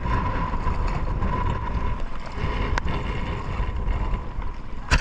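Wind buffeting the microphone and big, choppy waves washing against a small wooden outrigger fishing boat, a steady rumbling noise, with one sharp knock just before the end.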